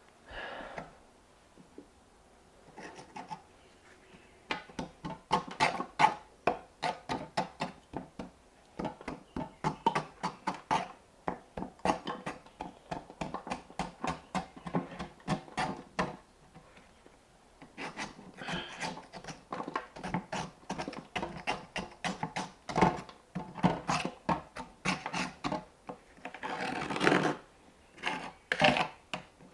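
Hand tools working on washing-machine drum parts: a rapid series of short scraping and tapping strokes, in two long runs with a brief pause in the middle.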